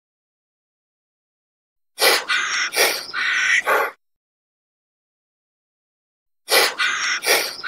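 A harsh, raspy animal call made of several quick pulses, about two seconds long. The same call comes twice, about two seconds in and again near the end, with dead silence between.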